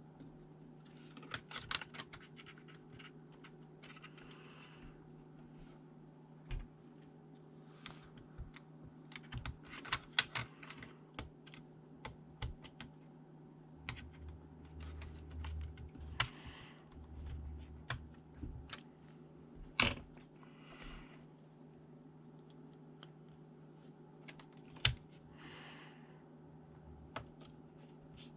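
Scattered small clicks, taps and short scrapes of hands working on a laptop's plastic and metal parts, over a steady low hum.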